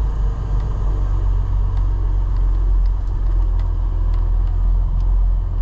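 Semi truck's diesel engine running with a steady low rumble, heard from inside the cab while the truck drives slowly.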